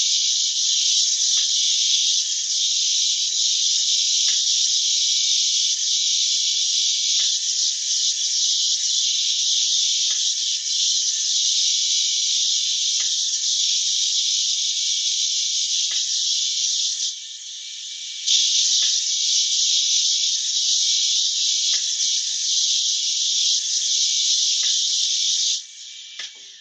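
Long-reach drywall pole sander with a coarse, stone-hard abrasive disc grinding off a popcorn ceiling texture, its dust extractor pulling through the hose: a loud, steady high-pitched hiss with scattered ticks. The hiss drops briefly about two-thirds of the way through and dies away shortly before the end.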